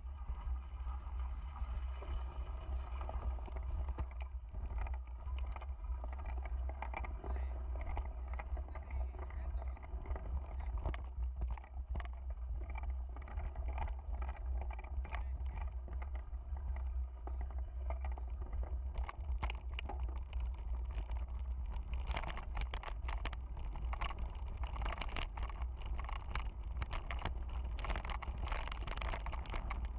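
Out in the rain: a steady low rumble and noisy wash, with many sharp ticks of raindrops that grow dense from about twenty seconds in.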